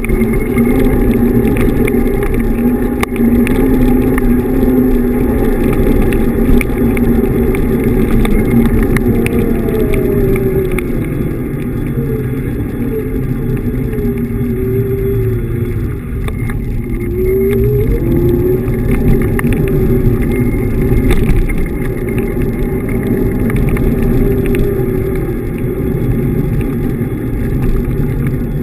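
Xiaomi M365 Pro electric scooter riding over pavement: a steady rumble of wind and tyre noise with scattered rattles, and the motor's whine dropping in pitch as it slows around the middle, then climbing again as it speeds back up.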